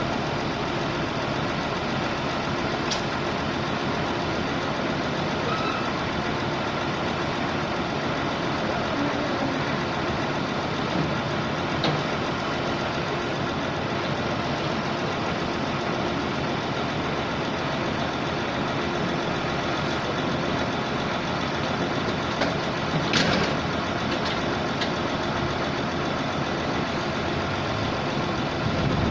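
The engine of a 655 CFM portable air compressor running steadily, with a few faint clicks.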